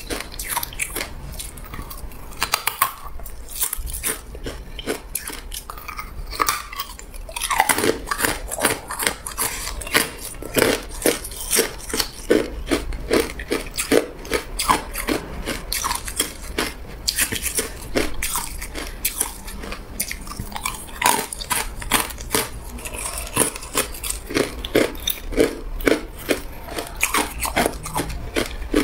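Hard ice being bitten and chewed: rapid, crackling crunches, sparse at first and coming thick and fast from about seven seconds in.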